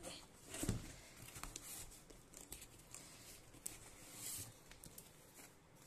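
Cardboard shipping box handled by hand as it is opened: faint rustling and scraping of its flaps with light taps, and one louder bump a little under a second in.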